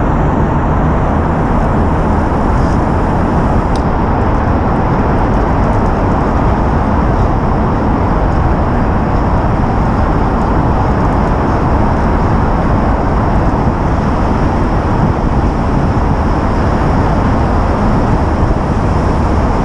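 Steady, loud rush of wind buffeting the microphone while riding, with no breaks, heaviest in the low end.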